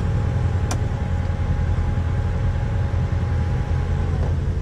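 UTV engine idling steadily, a low rumble with a steady hum over it, and one sharp click under a second in.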